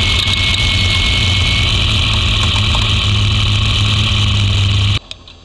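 Trophy truck engine idling loudly, heard from inside the cab, with a strong steady hiss over it. It cuts off suddenly near the end.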